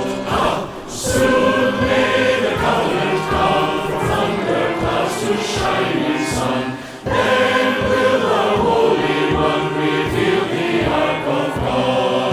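A choir singing a hymn, in sustained phrases with a short break about seven seconds in.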